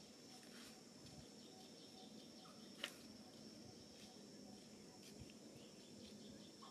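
Faint outdoor ambience of insects droning steadily at a high pitch, with one sharp click about three seconds in.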